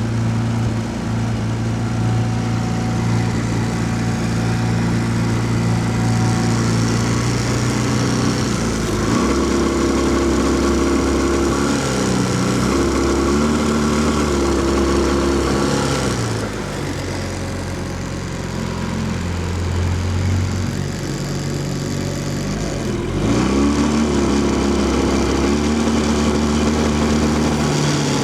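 A 15 HP four-stroke outboard motor running under way, its engine speed changing a few times: it shifts about a third of the way in, eases off a little past halfway and picks up again near the end. The motor is one that, once warm, misses when given more than mid throttle.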